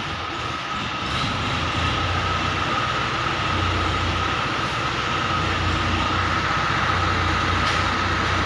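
Mobile crane's engine running and its hydraulics whining steadily as it holds a lifted load; the low engine rumble grows stronger about two seconds in.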